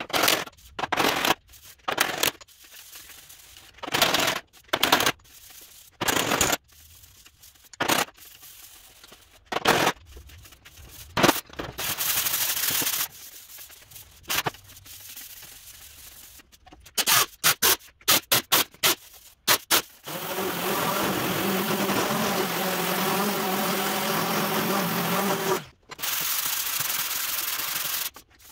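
Body hammer striking the welded seam of a sheet-steel truck door bottom over a dolly, planishing the weld flat: sharp metallic blows in irregular groups, some in quick runs. About twenty seconds in they give way to about eight seconds of steady rasping, with one short break, as a sanding block is run over the seam to show its high and low spots.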